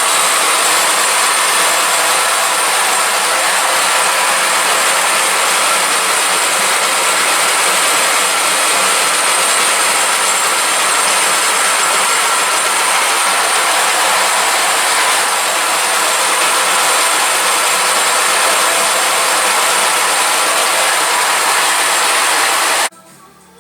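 Cylinder head resurfacing machine running, a steady machining noise with a high whine, as it surfaces an Opel Astra Isuzu 1.7 DTI cylinder head. The sound cuts off suddenly near the end.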